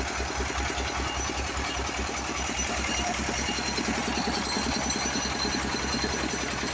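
Engine-driven rice threshing machine running steadily, its engine beating with an even, rapid pulse.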